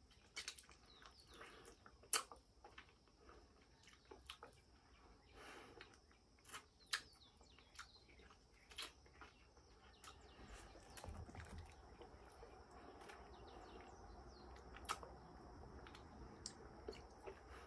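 Faint mouth sounds of a person eating durian: soft, wet clicks and smacks of chewing scattered through, with one sharper click about two seconds in.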